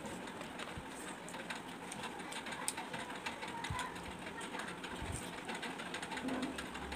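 Close-up eating sounds: wet chewing and lip smacking on mouthfuls of panta bhat, rice soaked in water, with fingers squishing through the watery rice. Many small, quick clicks throughout.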